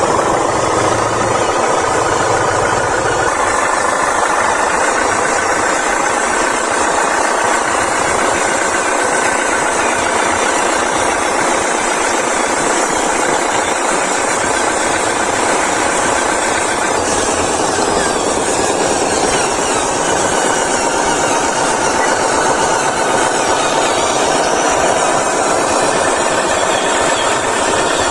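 Motors running steadily without a break, a continuous mechanical whir.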